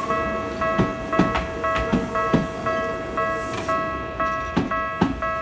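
Level-crossing alarm ringing a rapid, repeating electronic ding while a Tokyu 9000 series electric train rolls past. Its wheels clack over the rail joints at uneven intervals, louder than the bell.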